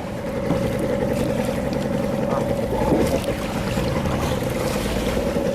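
Fishing boat's engine running with a steady drone.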